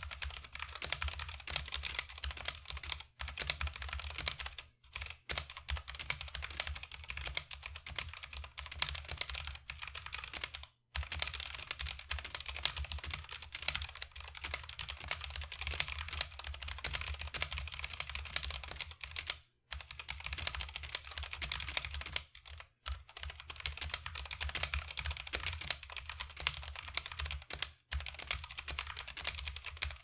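Stock Redragon K631 Castor 65% mechanical keyboard with red linear switches and a plastic plate, typed on fast and continuously with several short pauses. The keystrokes sound plasticky and cheap, with little or no ping.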